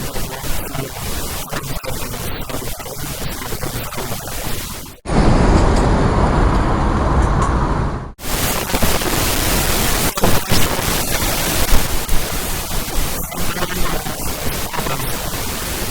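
Steady rushing outdoor noise with scattered small clicks. About five seconds in it cuts to a louder, deeper rushing that lasts about three seconds before cutting back.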